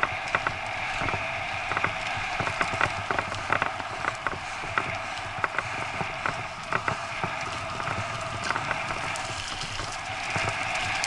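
Bicycle rolling fast along a dirt trail strewn with dry leaves behind a pulling dog: a steady rush of tyres on the ground, broken by frequent irregular clicks and rattles as the bike jolts over bumps.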